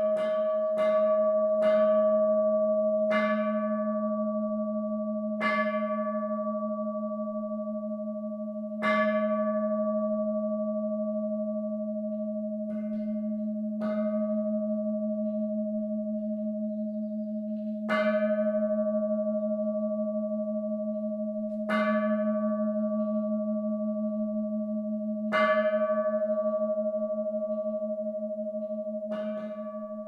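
Music of struck bells over a steady low drone: a quick run of strikes at the start, then single strikes every few seconds, each ringing out slowly.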